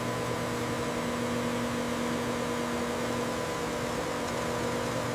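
Steady electrical machine hum over an even hiss, holding several fixed tones without change.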